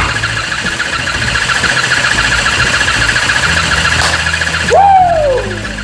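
Battery-powered Soggy Doggy toy dog running its motor as it shakes, a steady fast-pulsing buzz: the dog has gone off on this turn, so the player loses. About five seconds in the buzz stops, and a loud sliding tone falls in pitch.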